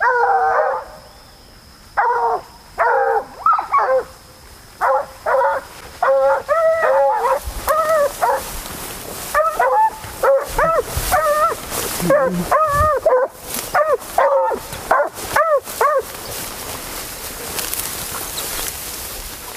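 Hunting dogs baying on the trail of wild boar: a quick run of short barks and yelps that bend in pitch, stopping a few seconds before the end.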